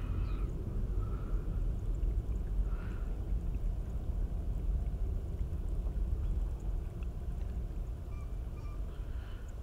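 Steady low outdoor rumble, with a few faint, short chirps, several of them near the end.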